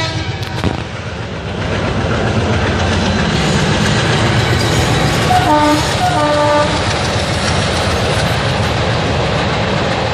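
Diesel-hauled passenger express crossing a steel girder bridge: a steady rumble of the locomotive and the wheels on the rails builds up, with two short blasts of the locomotive horn about five and a half seconds in.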